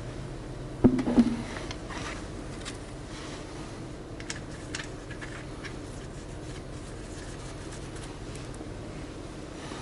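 Two sharp knocks about a second in, then scattered light clicks of tools or parts being handled, over a steady low hum.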